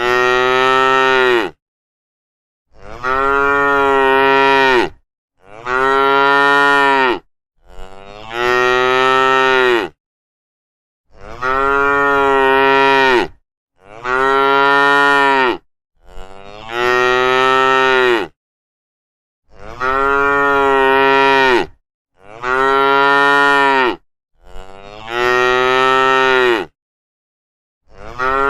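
Cattle mooing over and over, about eleven long calls of roughly two seconds each, many starting with a short upward slide in pitch and then holding one steady tone, with brief silent gaps between them.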